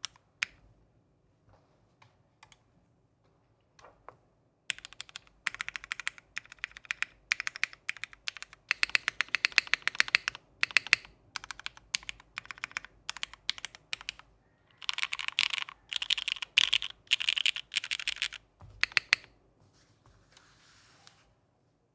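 Typing on a Hiney Ladybird mechanical keyboard with Cherry vintage Black linear switches, GMK Lychee keycaps, an FR4 plate and o-ring mounting. A few lone keystrokes come first, then bursts of fast typing from about five seconds in, stopping a few seconds before the end.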